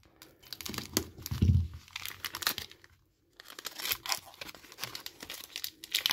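A trading card pack's wrapper being torn open and crinkled in the hands, with irregular crackling and rustling that pauses briefly near the middle. There is a louder low bump about a second and a half in.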